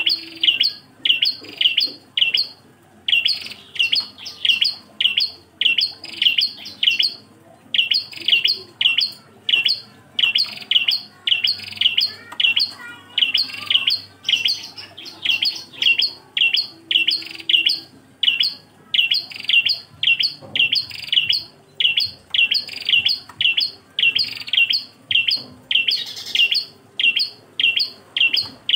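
A single prenjak klawu (ashy tailorbird) calling: a fast, even string of sharp, high chips, about three to four a second, in long runs broken by brief pauses.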